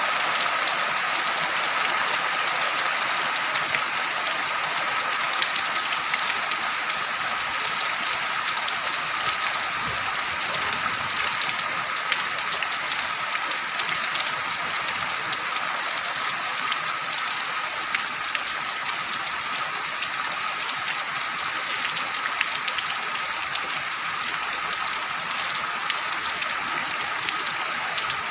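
Heavy rain falling steadily: a dense, even hiss peppered with countless small drop impacts.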